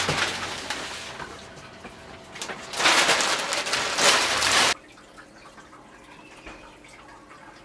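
Plastic sheet rustling and crinkling as it is pulled off a glued-up veneer tabletop. A loud burst at the start fades away, and a second one about three seconds in cuts off suddenly, leaving faint room tone.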